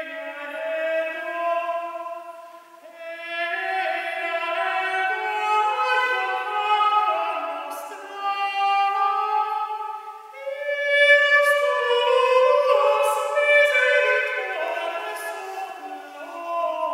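Men's voices, countertenor and tenor, singing early Netherlandish polyphony in several parts, with long held notes. The sound dips briefly about three seconds in and again about ten seconds in, between phrases.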